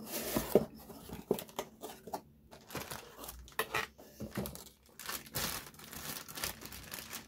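Clear plastic parts bags crinkling and rustling as they are handled and lifted out of an opened cardboard box, in irregular crackles.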